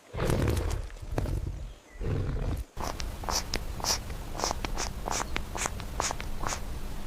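A big cat growling low in the first two seconds, then a run of short, sharp sounds at about two a second.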